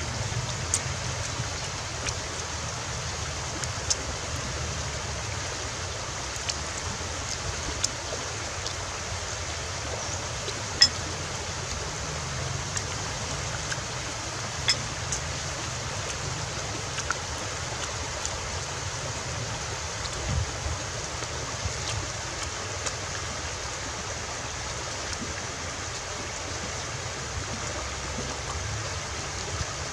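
A shallow river running over rocks: a steady rushing of flowing water, with a few small sharp clicks scattered through it, the loudest about eleven seconds in.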